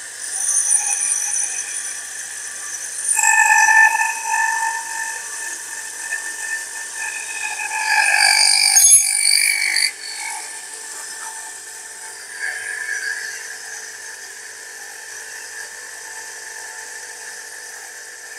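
Small electric water pump running with its impeller rubbing against the pump head, giving a high-pitched rubbing whine that swells twice, about 3 and 8 seconds in, then settles quieter and steady. The rub is deliberate: the head is being tightened down onto the impeller, with soil in the water to lap it in, so the pump gives more pressure.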